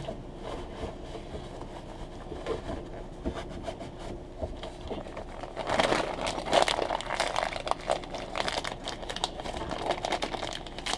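Plastic packaging crinkling as it is handled and opened to get out a new brass laundry valve, loudest from about six seconds in. Before that, quieter rubbing of a paper towel.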